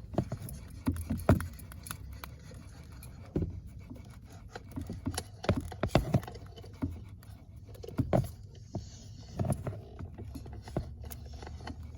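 A car being cranked over and over without starting: a low rumble broken by irregular knocks and clicks.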